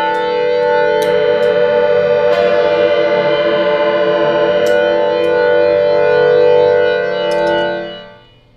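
Electric guitar through a Super Ego+ synth/freeze pedal: a held, sustained chord drone with shimmering detune, with a few faint clicks over it. It fades out about eight seconds in.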